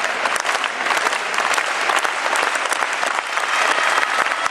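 Spectators clapping steadily in a large indoor athletics hall as a pole vaulter sets off on her run-up.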